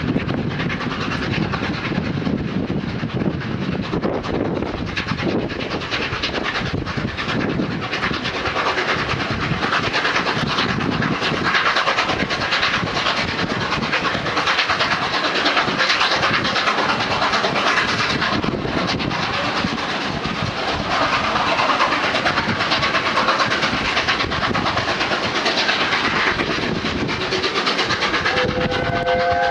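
Peppercorn A1 Pacific steam locomotive 60163 Tornado working hard up a steep bank with a passenger train: a continuous heavy rush of exhaust and running noise from the engine and its carriages. Near the end a multi-note whistle starts to sound.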